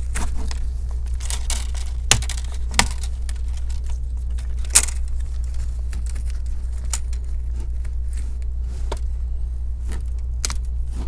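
Metal prying tool working between a laptop's plastic screen bezel and the LCD panel, cutting the adhesive tape: scattered sharp clicks and snaps, the loudest about five seconds in, over a steady low hum.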